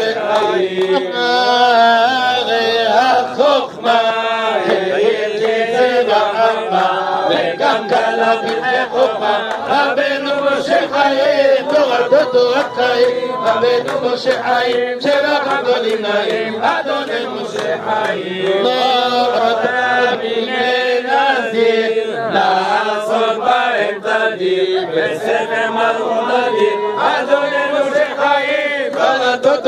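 Crowd of men singing a Hebrew hymn together, the melody running on without a break.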